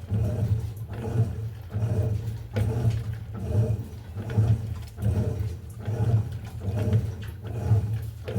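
Electrolux LTE08 top-loading washing machine in its agitation stage: the motor hums as the agitator swings back and forth, churning the water and clothes in regular surges about once a second.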